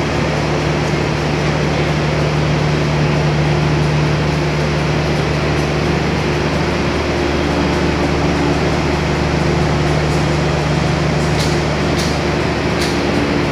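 Diesel passenger train idling at a station stop: a steady drone with a low hum held on a few fixed pitches. A few faint clicks near the end.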